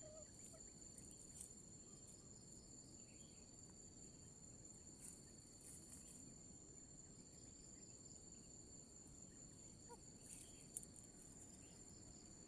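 Faint, steady, high-pitched insect chorus of crickets or cicadas: two even shrill tones that never break, with a few soft ticks and rustles.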